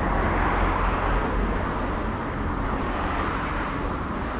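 Road traffic noise from a nearby road: a passing vehicle swells about a second in and slowly fades, over a steady low rumble.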